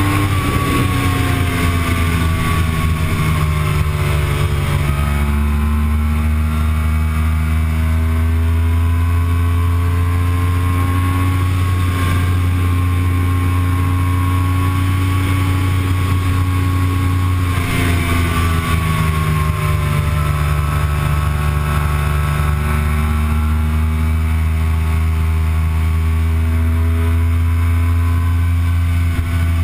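Yamaha YZF-R1's inline-four engine running hard in sixth gear at very high speed, with a steady rush of wind. Its pitch drops over the first few seconds and again about 18 seconds in as the throttle is eased, and in between holds and slowly climbs again.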